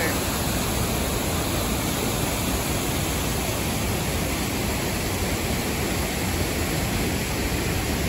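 Large waterfall: white water cascading over broad rock slopes, a loud, steady rush that never lets up.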